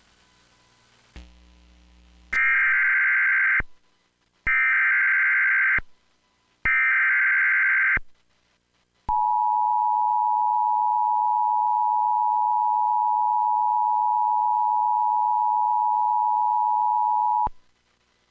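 Emergency Alert System header for a severe thunderstorm warning: three bursts of the SAME digital data code, each a little over a second long, then the two-tone EAS attention signal held steadily for about eight seconds. This sequence signals that an emergency alert message is about to be read.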